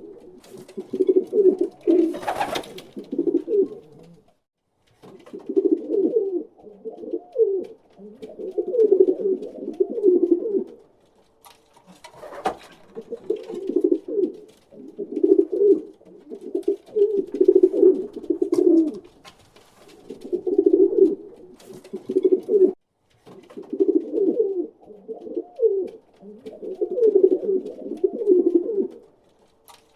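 A pigeon cooing over and over in low, warbling phrases of a second or two, with short pauses between them. A couple of brief sharp clicks come in between.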